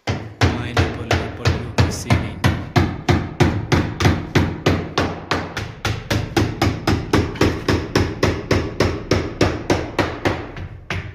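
Hammer striking steadily and evenly in woodworking, about three blows a second, starting abruptly and stopping near the end.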